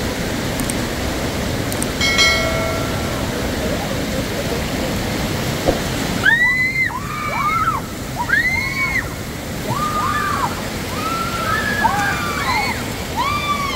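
White water of a fast mountain stream rushing over rocks, steady throughout. From about six seconds in, as a girl falls into the current, there are repeated high-pitched rising-and-falling cries and screams from people. A short held call comes about two seconds in.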